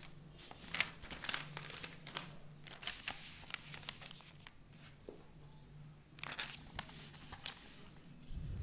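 Paper rustling and crinkling in scattered short bursts as a lined notebook sheet is laid over an open textbook and smoothed flat by hand.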